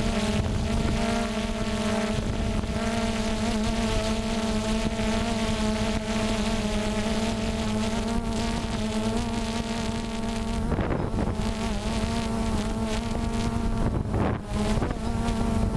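DJI Phantom quadcopter's motors and propellers in a steady buzzing hum, picked up by the camera on the drone itself, with wind on the microphone rising in brief gusts twice near the end.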